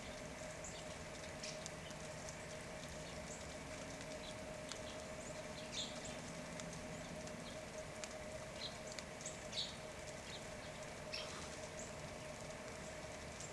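Short, high chip calls of small songbirds, scattered irregularly, over a steady faint hum.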